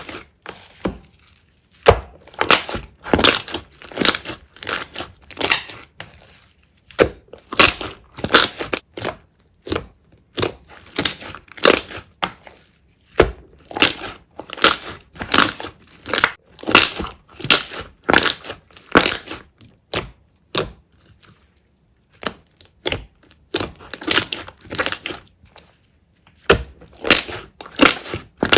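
Slime being pressed and squeezed by hand, giving repeated bursts of crackling and popping, about one cluster a second with brief pauses between.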